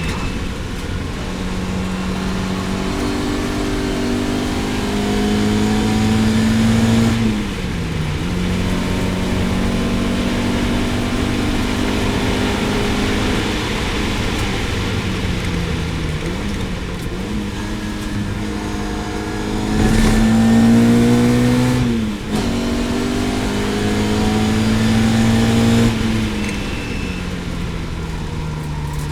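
Lotus Elan GTS racing car's engine running hard on track, its note climbing in pitch under acceleration and dropping sharply as the driver lifts or changes gear, about 8 seconds in and again around 22 and 26 seconds.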